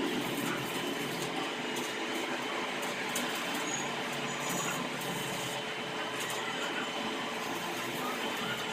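Steady machine hum and hiss at an even level, with a faint high tone and scattered faint ticks.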